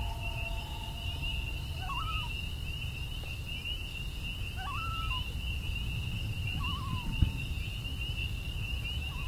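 Crickets chirring steadily over a low rumble of running water. A few short whistled animal calls rise and warble about two, five and seven seconds in, and there is one soft thump near the end.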